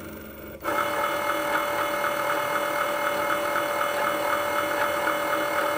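Cricut Maker cutting machine powering up: its motors start suddenly about half a second in and run with a steady whir, a fixed tone with a faint regular pulsing.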